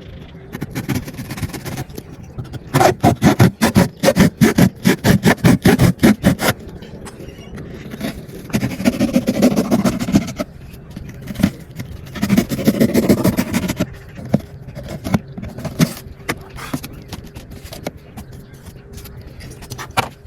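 Cardboard being worked by hand: a fast run of quick scraping strokes, then two longer scrapes, with scattered knocks in between.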